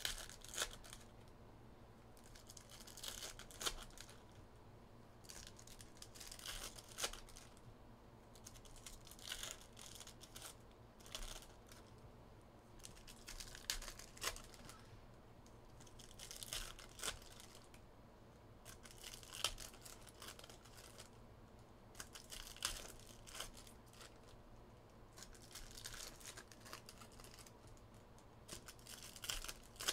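Foil trading-card pack wrappers being torn open and crinkled, in repeated short bursts a few seconds apart, over a faint steady hum.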